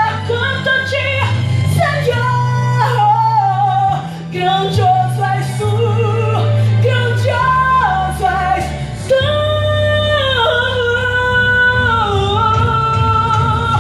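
Female voice singing a Christian worship song over full band backing with a steady bass line, holding long notes in the second half.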